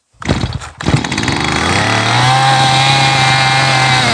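Stihl MS211 two-stroke chainsaw engine firing up on a pull of the starter rope. It catches with a brief sputter, then runs, revving up to a steady high speed and holding there before the revs begin to drop near the end.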